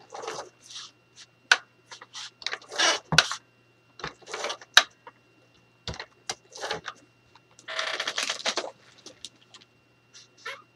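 Paper and plastic sheet being handled on a cutting mat: irregular rustles, scrapes and crinkles, each short, with one longer rustle about two-thirds of the way through and a few sharp clicks.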